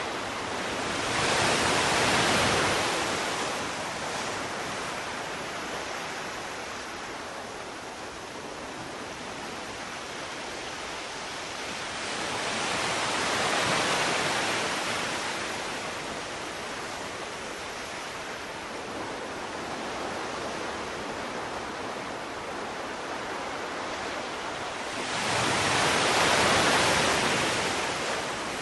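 Sea waves surging in: a steady rushing hiss of surf that swells louder three times, about twelve seconds apart, and falls back between.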